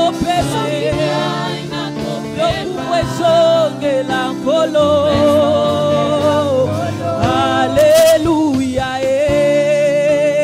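Live Lingala gospel worship song: a small group of singers holds long, wavering notes together over keyboard and drum accompaniment.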